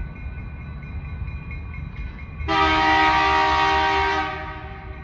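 The air horn of an approaching BNSF EMD SD70 diesel locomotive sounds one long chord blast. It starts suddenly about two and a half seconds in and fades out after about a second and a half, over a low rumble.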